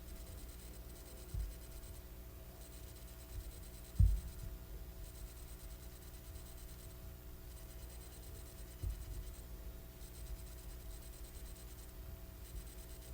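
Thin Phillips screwdriver turning tiny screws out of a circuit board, with light scratching and a few soft low thumps, the loudest about four seconds in, over a steady low hum.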